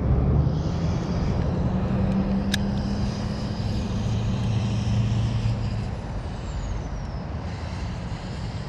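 A motor engine running nearby: a steady low hum whose pitch shifts slightly, with a single sharp click about two and a half seconds in.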